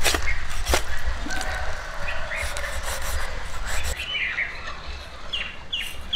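Birds chirping: a short falling call repeated about twice a second in the second half, with a couple of sharp knocks near the start.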